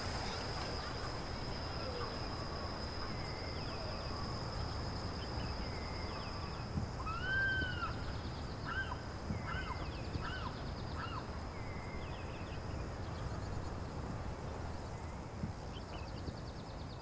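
Rural outdoor ambience: a steady high-pitched whine over a low background rumble, with a few short chirping calls in the middle, the longest one rising and falling.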